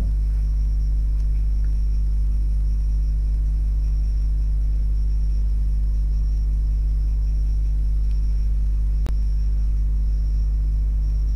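A steady low rumble and hum that does not change, with a single click about nine seconds in.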